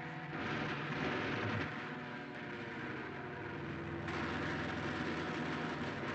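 Cartoon sound effect of a propeller airplane engine droning in flight, with a rushing, wind-like noise. It swells about half a second in and grows fuller about four seconds in.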